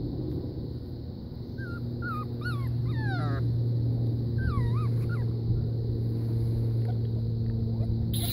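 German shorthaired pointer puppy whimpering in high, wavering cries: a cluster about two seconds in and another about halfway through. A steady low hum runs underneath.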